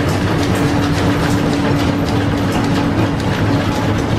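1925 American 18-inch engine lathe, flat-belt driven from the shop's line shaft, running steadily under power while cutting steel, its gearing and belt giving a constant hum with a rapid, even clatter of ticks.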